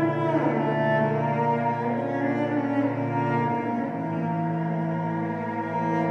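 Cello bowed in long sustained notes over a low held drone, with a short downward slide about half a second in.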